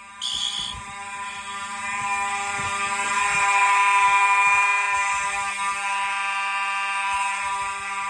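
Fire alarm horn sounding a steady, continuous tone that swells louder in the middle, with a short high-pitched burst just after the start.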